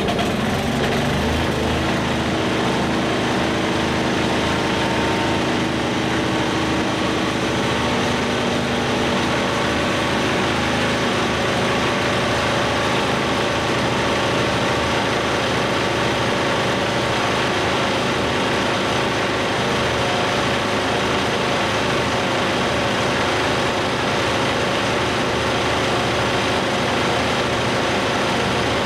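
Portable generator set's engine running steadily and charging, now that its blown main fuse has been replaced. Its tone shifts a little over the first several seconds, then holds even.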